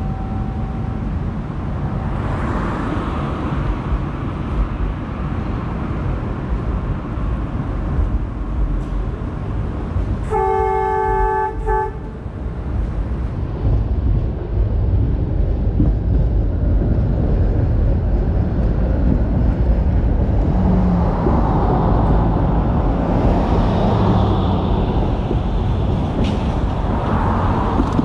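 Heritage trolley running along its street track with a steady low rumble that grows louder from about the middle on. About ten seconds in, a vehicle horn sounds one steady blast lasting nearly two seconds.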